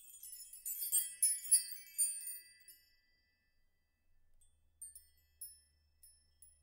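A cascade of high, bell-like chime notes, densest in the first two to three seconds, then thinning to a few scattered, fading notes near the end.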